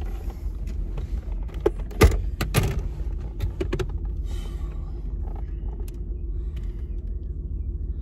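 A car engine idling as a steady low rumble, with a few sharp clicks and knocks, the loudest about two seconds in.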